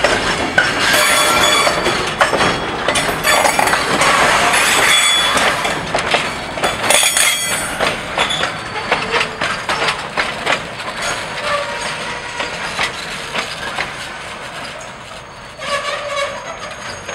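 Steel wheels of slow-rolling railcars, a heavy-duty multi-axle flatcar and a caboose, clanking over the rail and squealing in short high-pitched bursts as they pass. Loudest in the first half, then fading off.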